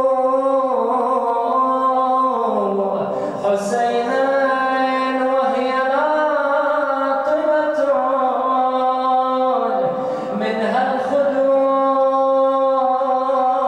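A solo male voice chanting an unaccompanied Shia mourning lament (latmiya). It sings long, steady held notes that slide from one pitch to the next.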